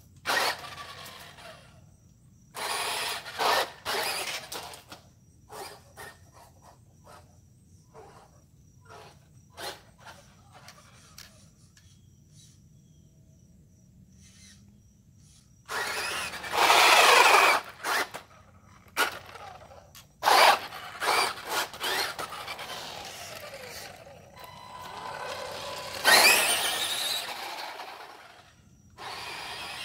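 Blitzer Beetle RC buggy's electric motor and gears whining in repeated bursts of throttle, rising in pitch as it speeds up, with its tyres scrubbing on the asphalt. Short sharp clicks and ticks come between the bursts, and the loudest runs fall about halfway through and a few seconds before the end.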